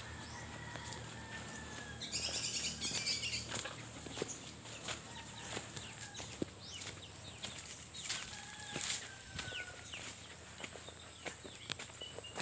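A bird's wings flapping in a brief flurry about two seconds in, the loudest sound, over footsteps crunching on dry leaves and grass. Faint thin bird calls slide in pitch near the start and again about eight seconds in.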